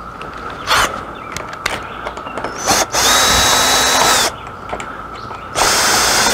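Cordless drill/driver running in short bursts: a brief blip, then a steady whining run of about a second and a half about three seconds in, and another run near the end, driving the screws that hold the awning's end head to the roller tube.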